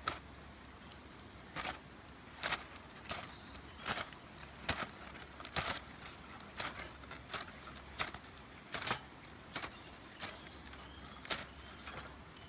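A series of sharp knocks or clicks, roughly one a second at an uneven pace, over a faint steady background.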